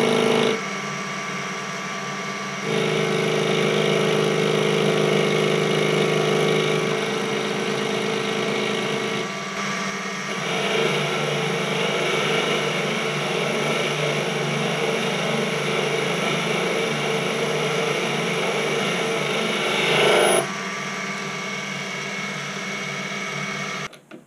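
Proxxon PD 250/e mini lathe running with a steady motor whine while light cuts are taken through the mill scale on the end of a hot-rolled steel bar. The cutting noise comes in two long stretches, about 3 to 9 seconds and 11 to 20 seconds in, then eases off, and the lathe stops near the end.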